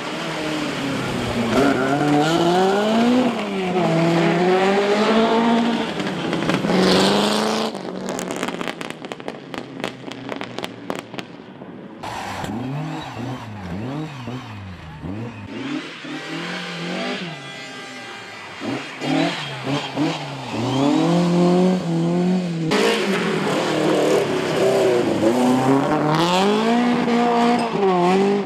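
Rally car engines revving hard as cars go by one after another, the pitch climbing and dropping again and again through gear changes and lifts off the throttle. A spell of crackling comes around the middle.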